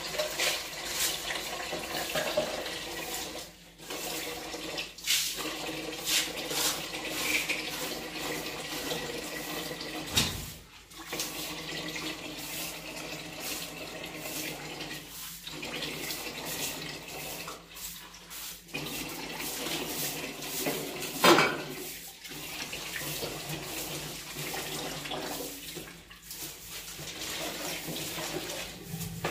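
Water running and splashing, broken by several brief pauses, with scattered small clicks and one sharper knock about two-thirds of the way through.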